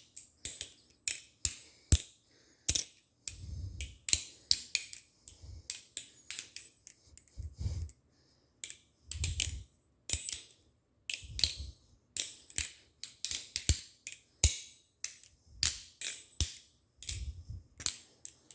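Balisong (butterfly knife) trainer being flipped: its metal handles clack and click sharply against each other and the blade in an irregular run, mixed with a few dull low thuds from handling.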